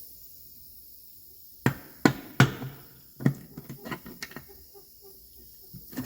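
Sharp metal knocks and clanks, five loud ones between about two and four and a half seconds in, with lighter clicks between them: tools and parts being worked during the teardown of a Kohler K321 single-cylinder engine.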